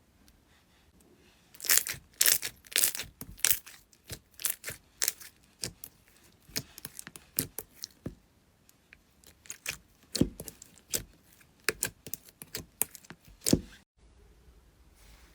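Slime being squeezed and worked by hand, giving an irregular run of sharp crackles and pops that starts about a second and a half in and cuts off near the end.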